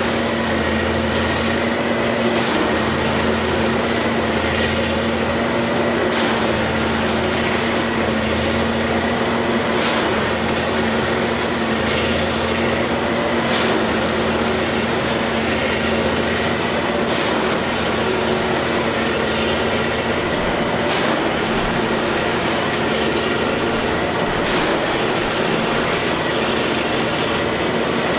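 Railway track maintenance machine running steadily on the rails with a constant engine hum, and a sharp clank about every three and a half seconds as it works through its repeating cycle.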